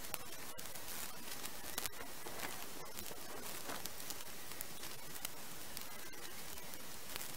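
Faint rustling and light snapping of dead branches and twigs being pulled from a pile and packed into a large woven sack, with scattered small clicks over a steady hiss of flowing river water.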